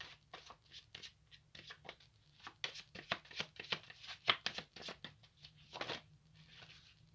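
A tarot deck being shuffled by hand: a quiet, quick, irregular run of card flicks and slaps that stops about six seconds in.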